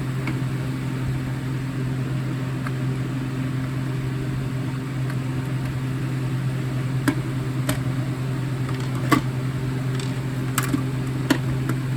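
Sharp plastic clicks and knocks as wire-harness connectors are plugged into FireX ADC ionization smoke alarms, about half a dozen in the second half, the loudest about nine seconds in. A steady low hum runs underneath.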